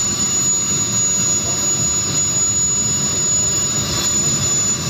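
Small model jet gas turbine running with a steady high whine, under a rough rumble of wind on the microphone.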